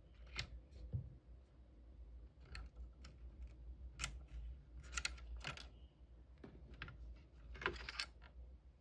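Irregular light clicks and taps of hand tools on a device's small plastic and metal parts during disassembly, over a faint low steady hum.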